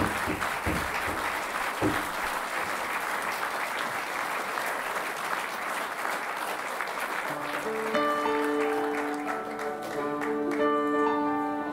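Audience applauding steadily. About eight seconds in, instrumental music starts up with long held notes as the next song begins.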